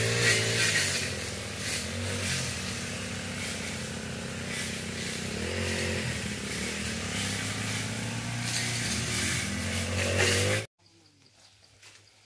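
Small two-stroke brush cutter engine running, its pitch rising and falling briefly a few times, then cutting off suddenly about ten and a half seconds in.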